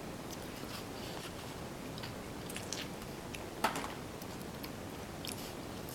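A small child eating: faint chewing and mouth clicks, with one sharper click about three and a half seconds in.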